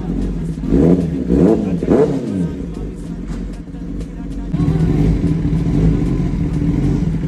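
Kawasaki ZX-10R's inline-four engine revved three times in quick succession, each rev rising and falling back, then running steadily, a little louder from about four and a half seconds in.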